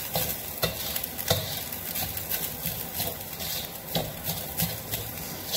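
Spatula scraping and knocking against a steel wok in irregular strokes as fried rice is stirred and turned, over a steady sizzle of the rice frying in oil.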